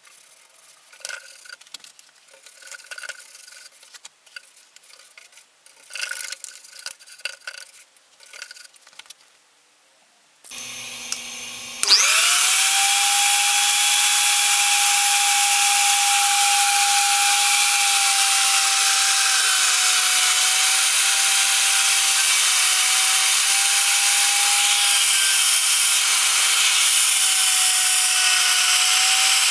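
For the first ten seconds or so, a paintbrush scratches intermittently on wood while stain is brushed on. About twelve seconds in, a CNC router's spindle spins up with a rising whine and then runs loudly and steadily, its thin end mill cutting into stained plywood, the whine dipping slightly at times under the cut.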